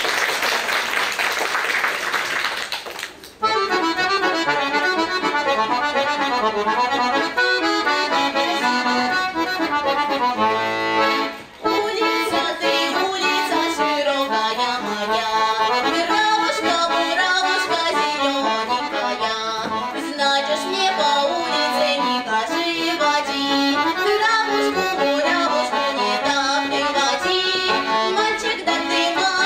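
Audience applause for about three seconds, then an accordion playing a fast tune of quick runs of notes, with a brief break about eleven seconds in.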